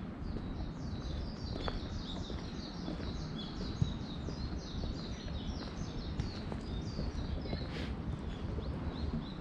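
A small songbird twittering in a long, rapid run of high chirping notes, over the low scuff of footsteps on a path.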